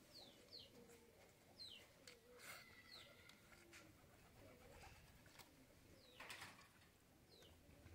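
Near silence with faint bird sounds: doves cooing softly and small birds giving short, high chirps now and then.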